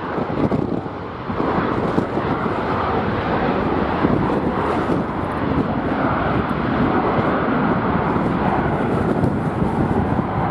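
Jet airliner's engines, a steady loud noise that settles in about a second and a half in, mixed with strong wind buffeting the microphone.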